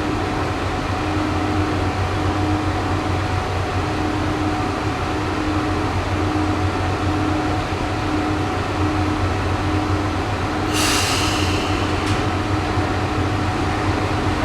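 Kanto Railway Joso Line diesel railcar with a steady low engine drone. A tone pulses about once a second beneath it until about ten seconds in, and a short burst of hissing comes about eleven seconds in.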